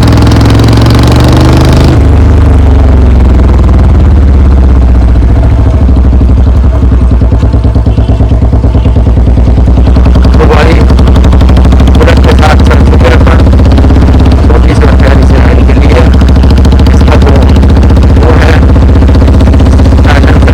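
Royal Enfield Bullet Standard 350's single-cylinder engine running loud and steady through an aftermarket bend-pipe exhaust while being ridden, with a deep even thump.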